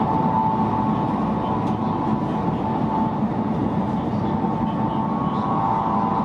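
Running noise heard inside the cabin of a Chinese high-speed bullet train at speed: a steady rumble with a constant high whine over it.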